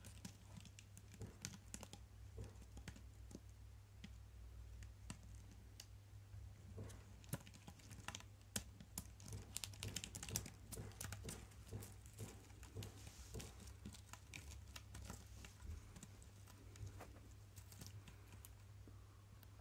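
Faint, irregular clicking and scratching of a Malaysian Dorcus parryi and an Aegus platyodon stag beetle's legs and claws on corrugated cardboard as they grapple, busiest in the middle, over a low steady hum.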